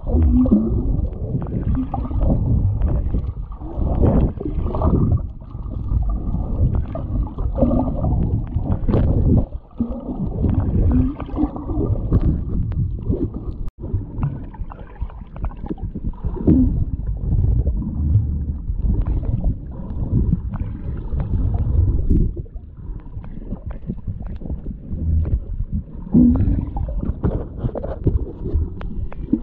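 Underwater sound from a GoPro in its waterproof housing: a muffled, dull rushing and gurgling of water moving around the camera, surging and easing irregularly.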